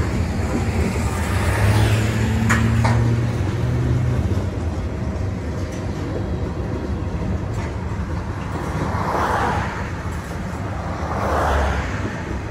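Cars of a CSX mixed freight train, covered hoppers and then tank cars, rolling past: a steady rumble of steel wheels on rail, with a few sharp clicks about two and a half seconds in and two swells of noise near the end.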